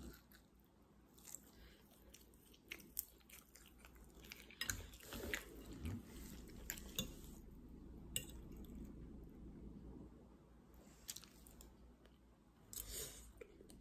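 A person chewing food close to the microphone, faint, with scattered small clicking mouth noises and a slightly louder burst near the end.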